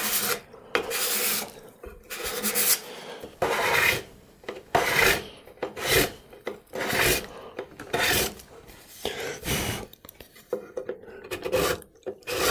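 Steel card scraper shaving the top edge of a figured white oak drawer: a series of short scraping strokes, roughly one a second, each a dry rasp of steel on wood.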